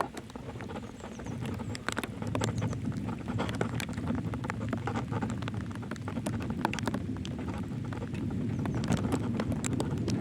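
Rain pattering, with irregular sharp drops ticking over a steady low rush that grows a little louder.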